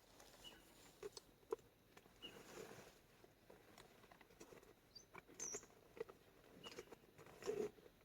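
Quiet scattered taps, clicks and rustles of light handling or movement, with a short high chirp about five and a half seconds in.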